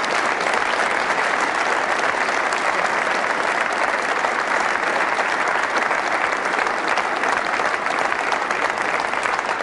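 Audience applauding steadily, many hands clapping at once without a break.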